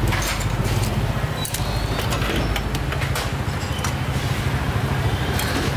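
A steady low rumble, with scattered clinks and taps of metal utensils against the pot and bowls as a noodle strainer and ladle are worked in a pot of boiling water.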